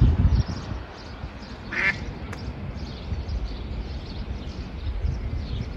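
Duck quacking: one clear quack about two seconds in, with fainter calls later, over a low rumble that is strongest at the start.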